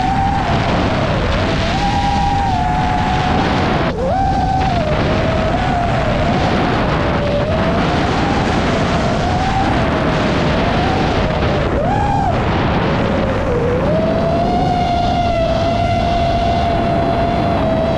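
A 5-inch FPV quadcopter's motors and propellers whine, the pitch rising and falling with the throttle. It is heard over heavy wind rush on the onboard GoPro's microphone. Near the end the pitch holds steady.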